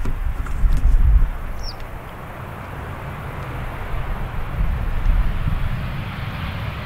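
Jet engines of a Boeing 737 rolling out just after touchdown: a steady broad rush that grows louder in the second half, with gusts of wind rumbling on the microphone.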